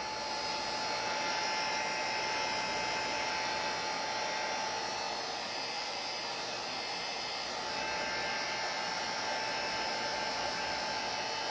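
Electric heat gun running steadily: an even rush of fan noise with a thin, steady whine, blowing hot air to shrink away plastic stringing on a flexible 3D print.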